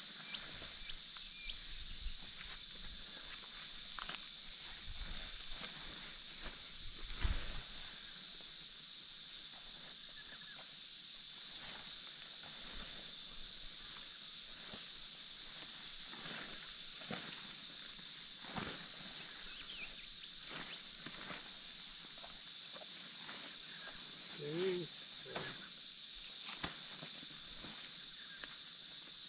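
Steady high-pitched chorus of insects, unbroken and even, with scattered light knocks and rustles of handling.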